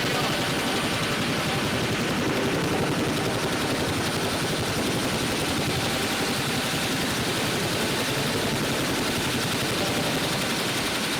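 Helicopter running: a loud, steady din of rotor and turbine with a thin, high, steady whine above it.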